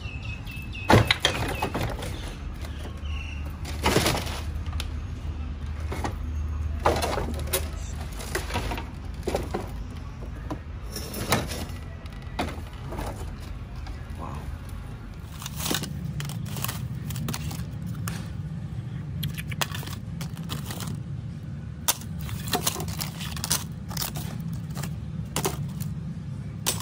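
Irregular clicks, knocks and cracks of small hard objects being handled, prodded and broken, over a low steady hum.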